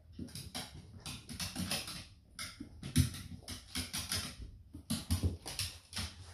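Dog's claws clicking and scrabbling on bare timber floorboards in quick, irregular taps, with one louder knock about three seconds in.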